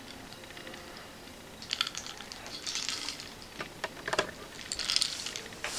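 Quiet, irregular clicks and rustles of hands and a makeup pencil being worked close to the microphone, coming in several short clusters from about two seconds in.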